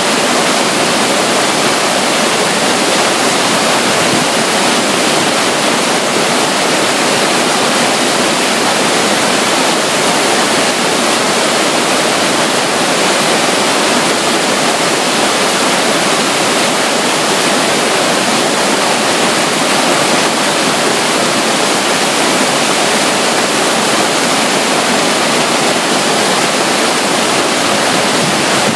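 Steady, unbroken rush of running water from a small flow beside a river near a waterfall.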